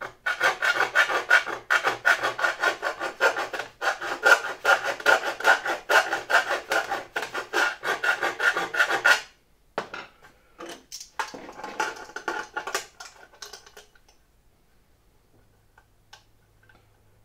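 Round file rasping back and forth in a 16 mm hole in aluminium sheet, several quick strokes a second, filing the hole to an angle. The strokes break off about nine seconds in, start again briefly, and stop for good about fourteen seconds in.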